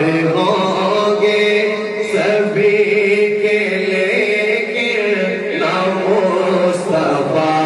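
A man's voice reciting a naat, an Urdu devotional poem in praise of the Prophet, sung as a chant in long, ornamented held notes.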